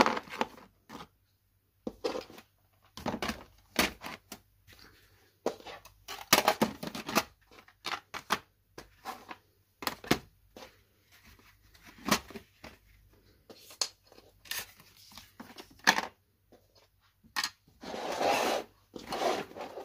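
Arteza watercolour sets and other art supplies being packed back into a plastic storage basket: scattered clicks and knocks of hard plastic and tin palettes against each other and the basket, with paper rustling and sliding. The longest stretch of rustling comes near the end.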